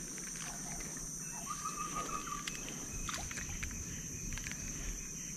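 Outdoor riverside ambience: a steady high-pitched insect drone, a short call about one and a half seconds in, and a few light knocks and clicks.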